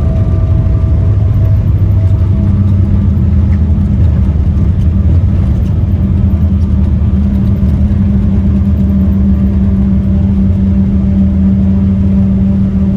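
Cabin noise inside a Boeing 777-300ER with GE90-115B engines: a loud, steady low rumble of engines and airframe, with a steady hum that comes in about two seconds in and holds.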